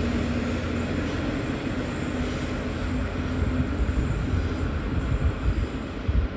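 V/Line N-class diesel locomotive-hauled passenger train pulling out and rolling past with a steady rumble. A low engine hum fades in the first few seconds, and irregular wheel thumps grow stronger near the end.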